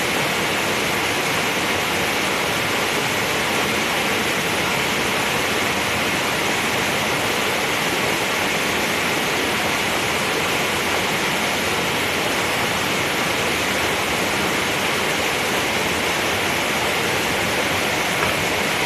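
Steady rushing noise of running water, even and unbroken throughout.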